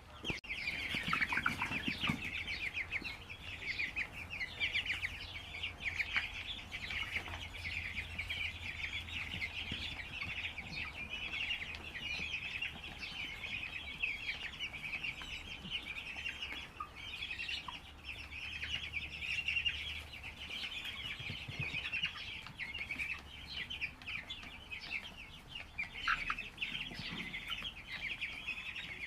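A large flock of broiler chickens chirping and clucking together in a dense, continuous chatter, with a steady low hum underneath.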